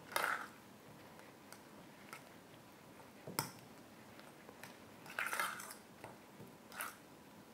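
A fork mashing a soft cheese-and-butter mixture in a stainless-steel bowl: a few short scrapes and clinks of the fork against the metal, with a longer run of scraping about five seconds in.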